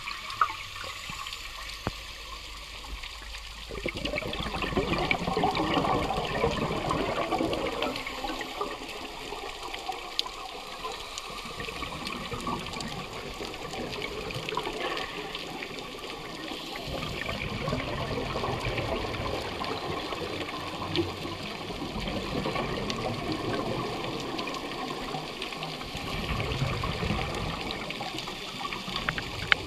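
Underwater water noise heard through a diving camera's housing: rushing and gurgling that swells in surges every few seconds, as a scuba diver's exhaled bubbles stream past.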